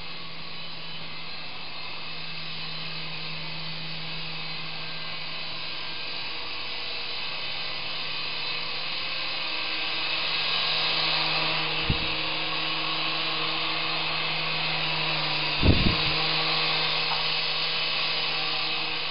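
Small electric remote-control helicopter with two sets of rotor blades flying indoors: a steady motor and rotor whir that grows louder about ten seconds in. Two short dull thumps, about twelve and sixteen seconds in.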